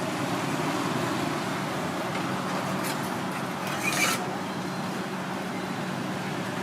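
Steady noisy street ambience with a low hum, and a brief louder scrape or clank about four seconds in.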